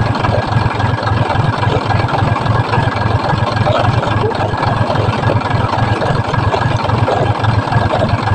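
Engine of the vehicle hauling the palm-fruit trailer, idling loudly and steadily with an even, rapid chug.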